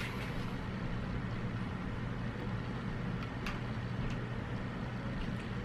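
Steady low hum of room or appliance noise, with a few faint clicks.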